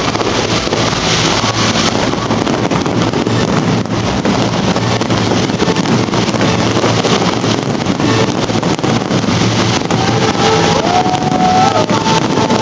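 Fireworks finale barrage: a dense, continuous run of bangs and crackling over a low rumble, with wind on the microphone. A wavering whistle-like tone comes in near the end.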